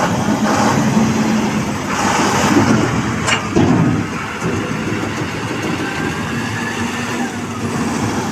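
Diesel engine of heavy construction machinery running steadily, with one sharp knock about three seconds in.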